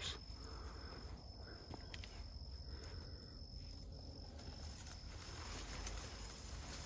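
Insect trilling steadily, a thin high-pitched tone that fades out about four and a half seconds in, over a faint low rumble.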